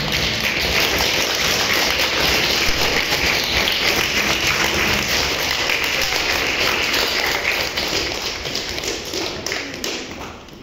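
Audience applauding: a dense patter of many hands clapping, dying away near the end.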